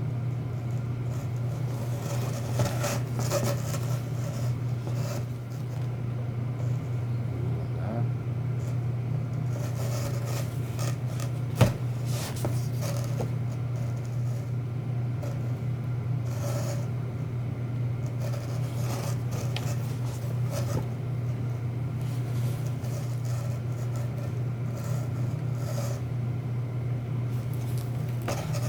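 Steady low hum with intermittent rustling and scraping handling noises, and one sharp click about twelve seconds in.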